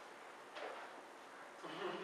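Quiet room noise with a single soft knock about half a second in, then a faint voice starting near the end.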